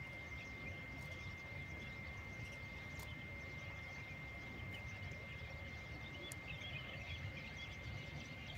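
Faint outdoor ambience: a steady low rumble, scattered faint chirps and a thin, steady high-pitched tone, with a few soft clicks.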